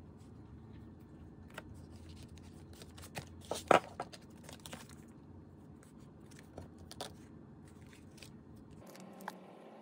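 Collage paper sheets being handled and flexed, with scattered light rustles and taps and a louder crackle of paper about three and a half seconds in.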